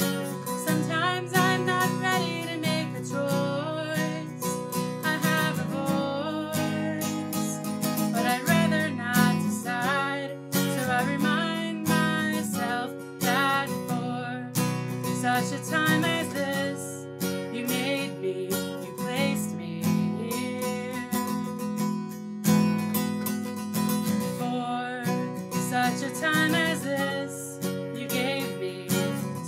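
Acoustic guitar strummed steadily as the accompaniment to a song, with a singing voice coming through faintly at times.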